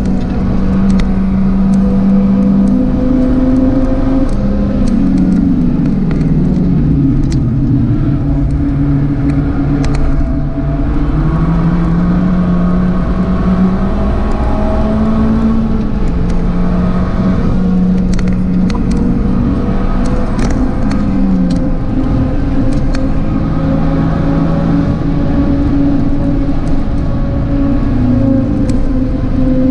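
Tuned Abarth 595's turbocharged four-cylinder engine driven hard at speed. It holds a steady note for a few seconds at a time, and its pitch drops and climbs again several times with braking and gear changes.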